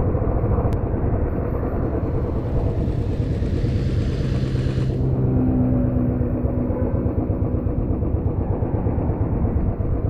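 Royal Enfield motorcycle running steadily at road speed, its engine and the wind rumble in the microphone filling the low end. A hiss swells in about two seconds in and cuts off sharply about three seconds later.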